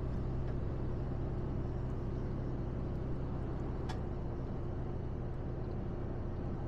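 Mercedes-Benz Actros truck cruising at motorway speed, heard from inside the cab: a steady engine drone with tyre and road noise. One light click about four seconds in.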